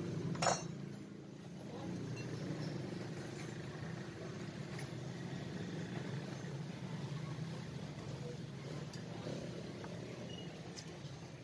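A steady, low engine-like hum, with one sharp click about half a second in.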